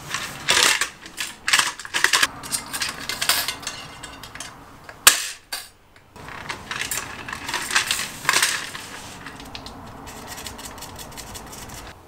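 Metal spokes clinking and rattling against each other, the hub and the fat bike rim as they are threaded through to lace the wheel. The clicks come irregularly, with one sharp, louder click about five seconds in, and they thin out after about nine seconds.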